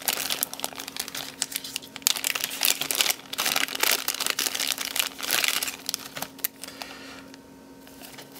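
Small clear plastic parts bag crinkling and rustling in the hands as it is handled and opened, busy for most of the time and dying down near the end.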